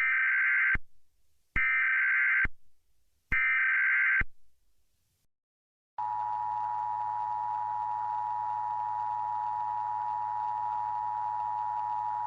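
Emergency Alert System SAME header: three short bursts of warbling data tones, each under a second long and a little over a second apart. About six seconds in, the steady two-tone EAS attention signal starts, with a faint hiss and hum under it.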